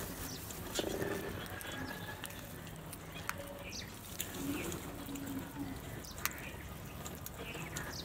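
House crows pecking at grain in a clay bowl and on concrete: scattered sharp taps, with short faint bird chirps and a few faint low calls behind them.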